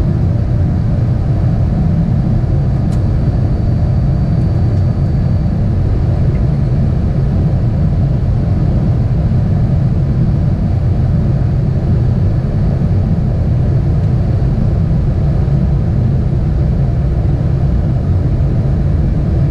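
Steady low rumble inside an Airbus A380 flight deck on final approach, with airflow and engine noise at approach thrust. A faint thin high tone sits over it for the first few seconds.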